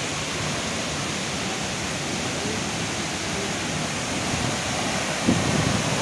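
Mridubanda waterfall running heavy with monsoon rainwater: a steady, even rush of falling water. A brief low burst of noise near the end.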